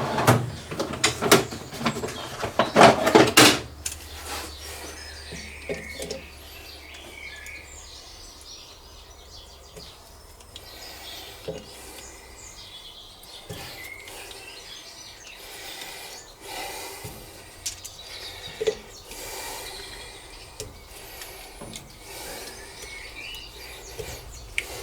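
Metal hand tools and small metal engine parts clinking and scraping on a workbench, with a burst of louder clattering in the first few seconds, then occasional quieter taps and rubs.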